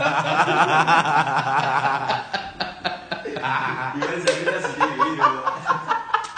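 Young men laughing: a wavering, drawn-out laugh, then short repeated bursts of chuckling.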